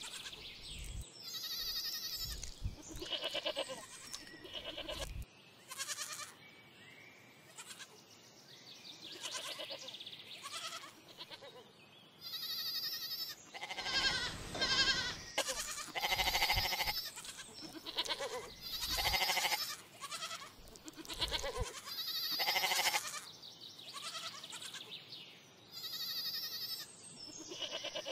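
A group of goats bleating again and again. Calls come every second or two, some short and some longer with a wavering pitch, and they sometimes overlap.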